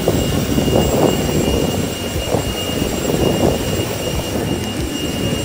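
Jet aircraft noise: a loud, steady rushing noise with a thin high whine over it.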